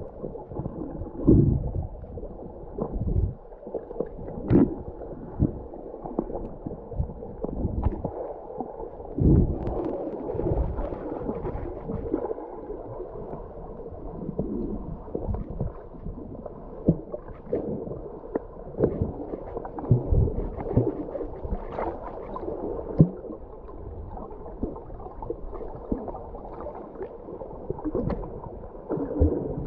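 Muffled underwater sound from a camera held under the sea: a dull, steady wash with irregular low thumps from the water moving around it.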